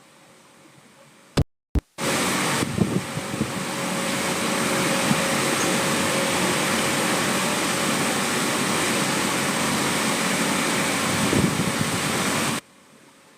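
Two sharp clicks, then a loud, steady, fan-like rushing noise that starts abruptly about two seconds in and cuts off suddenly near the end.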